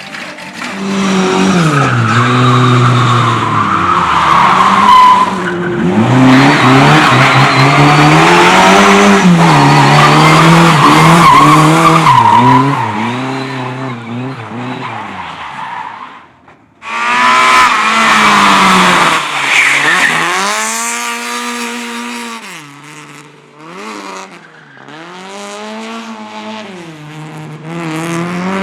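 Car engine revving up and down hard while its tyres squeal and skid through drift and slalom turns. The sound cuts off abruptly about two-thirds of the way through. A further stretch of engine revs rising and falling follows, with less tyre noise, and it gets quieter toward the end.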